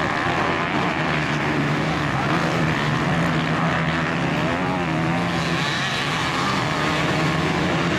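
Several motocross dirt bikes racing through a corner together, their engines revving up and down as the riders get on and off the throttle.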